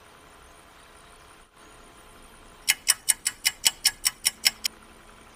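A clock-ticking sound effect: a run of quick, evenly spaced ticks, about six a second, starting nearly three seconds in and lasting about two seconds, over a faint hiss.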